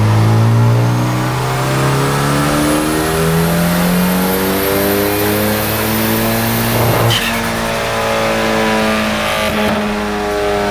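1995 Mitsubishi Eclipse GST's turbocharged 2.0-litre inline-four (4G63T) accelerating under load, its pitch climbing steadily, with a high turbo whistle rising along with it. About seven seconds in there is a sharp crack and the whistle stops, while the engine keeps running.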